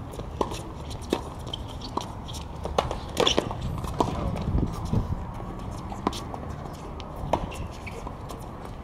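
Doubles tennis rally on a hard court: a series of sharp pops from rackets striking the ball and the ball bouncing, unevenly spaced about once a second.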